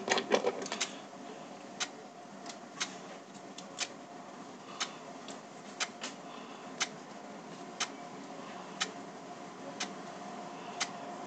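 A clock ticking steadily, one sharp tick about every second. A few small clicks from handling in the first second.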